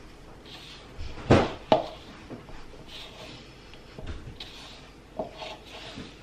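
Hand mixing sticky bagel dough in a mixing bowl: soft squelching and rubbing of dough against the bowl, with two sharp knocks about a second and a half in and a lighter knock near the end.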